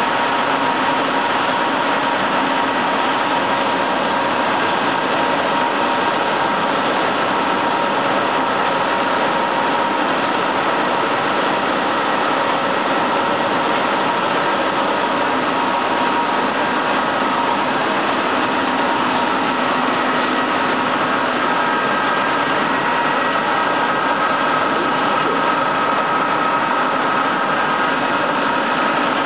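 Machinery of a buckwheat processing line running: a steady, loud mechanical din with several steady tones in it.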